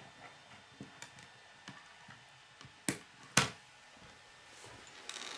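Plastic K'nex pieces being handled on a wooden tabletop: a few light clicks, then two sharp clicks about half a second apart midway, and a soft rustle near the end.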